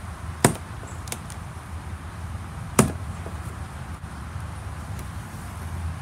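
Plastic packing straps around a cardboard box being cut, each giving a sharp snap: two loud snaps about two seconds apart, with a fainter click between, over a low steady hum.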